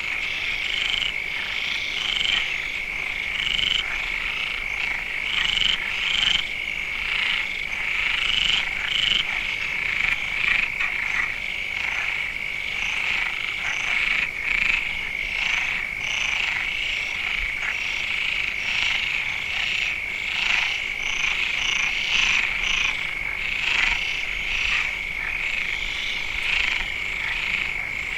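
A dense chorus of many frogs calling at once: a steady, high-pitched trilling drone with countless short croaks overlapping above it.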